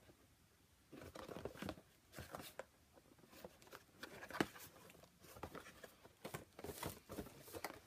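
Packaging being handled: scattered light rustles and soft knocks, with one sharper knock about halfway through.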